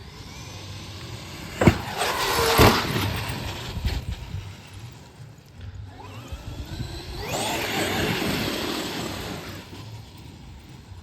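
Traxxas XRT electric RC monster truck: two hard thumps about two seconds in as the truck lands and its suspension takes the hit. About six seconds in, the brushless motor and drivetrain whine rises steeply as it accelerates away, holds, then fades near the end.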